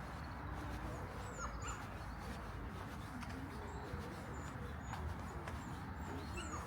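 A dog whimpering a few times, with birds chirping, over steady outdoor background noise.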